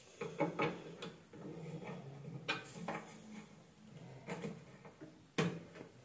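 A scattering of light clicks and knocks from hands handling wiring, a fuse connection and multimeter test leads inside an opened microwave oven, with a faint low hum underneath.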